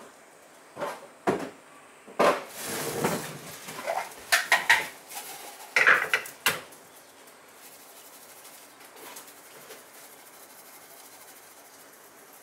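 Kitchen clatter of dishes and utensils being handled: a run of knocks and clinks over the first six or so seconds, then only faint steady room sound.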